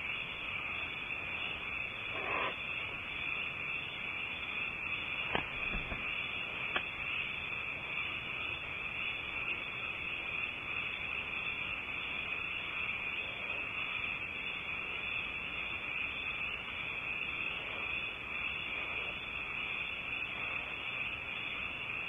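Steady high-pitched hiss inside a barn owl nest box, with a couple of faint taps a few seconds in as the owl shifts about.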